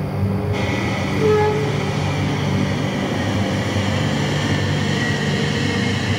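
Large mining haul truck driving, a steady mechanical rumble with a hiss; soft ambient music fades out in the first second.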